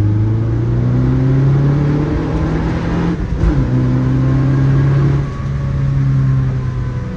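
Subaru Impreza RS's flat-four engine accelerating under load, its pitch climbing, dropping sharply at a gear change about three seconds in, then climbing again.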